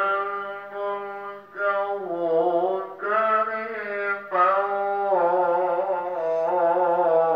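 Long, drawn-out wailing calls, one after another. Each is held with a wavering pitch, and they break off briefly about every second and a half.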